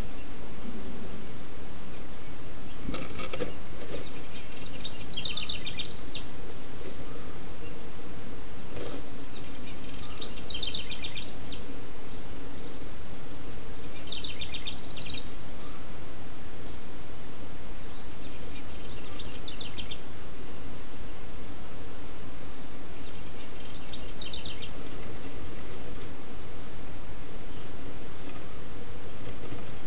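Wren song: five short phrases of rapid chattering notes, repeated about every four to five seconds over a steady hiss. A couple of sharp knocks sound in the first third.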